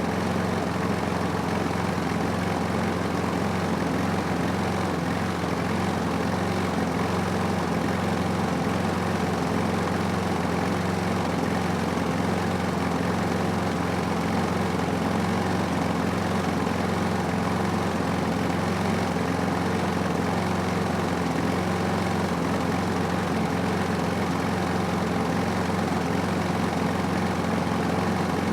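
Toro lawn mower's petrol engine running steadily at an even, unchanging speed.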